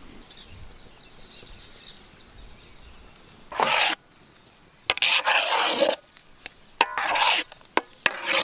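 A utensil scraping and stirring through thick white sauce in a large pan, in four strokes starting about three and a half seconds in, each under a second long.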